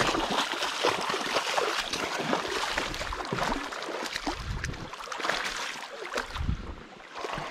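A hooked chinook salmon thrashing and splashing in shallow river water as it is drawn in on the line, in irregular splashes throughout.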